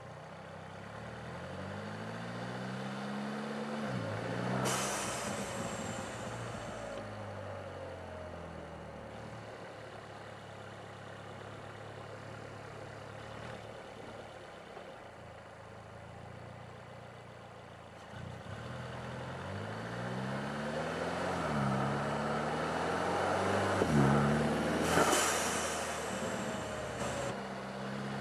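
Mercedes-Benz CLA250's turbocharged four-cylinder accelerating hard twice, its pitch climbing through the revs. Each pull ends as the throttle closes with a sharp rush of air from the aftermarket Forge blow-off valve venting turbo boost, about five seconds in and again near the end.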